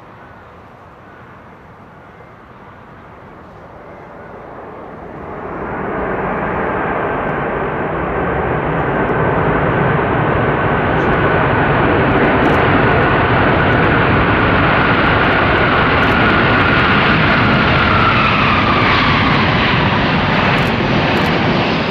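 Boeing 747-400 freighter rolling out on the runway after touchdown, its four jet engines growing much louder about five seconds in to a loud, steady rushing noise with a high whine. Near the end the whine drops in pitch as the engines spool down.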